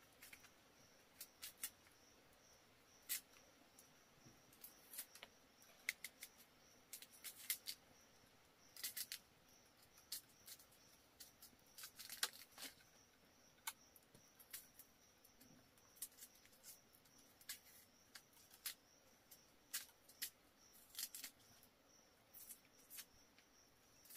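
Scattered sharp clicks and snaps at irregular intervals, several close together at the busiest moments, over a faint steady high-pitched whine.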